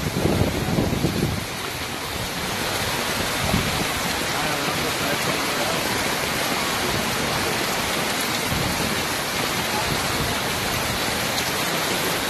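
Steady hiss of heavy rain falling on a flooded street, with floodwater running across the road. There is a low rumble in the first second or so.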